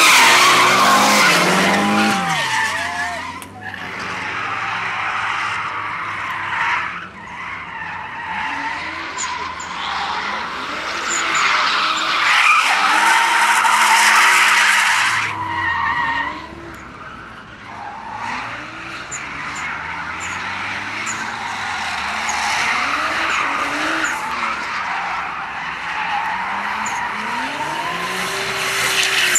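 Drift cars sliding sideways: tyres screeching and skidding on asphalt while the engines rev up and down repeatedly. The sound drops and changes suddenly a few times.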